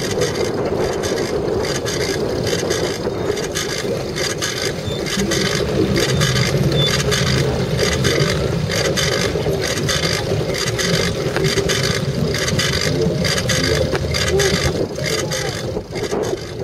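Steady wind noise buffeting the microphone of a bicycle-mounted camera riding through a dust storm, with a fast rattle from the bike over rough ground.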